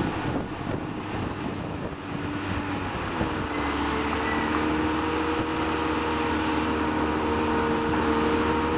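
Small crawler bulldozer's diesel engine working under load as it pushes tipped rubbish downhill. Its note changes about three seconds in, then holds steady.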